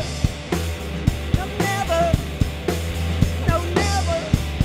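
Post-punk rock band playing live: a drum kit keeping a steady beat over a held bass line, and an electric guitar repeating a short riff of bending high notes about once a second.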